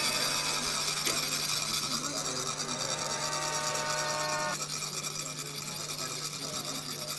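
Continuous fine metallic rasping of a chak-pur, the ridged metal funnel used to lay sand in a mandala, as a rod is rubbed along its ridges to make the coloured sand trickle out. A faint held tone underneath stops about four and a half seconds in.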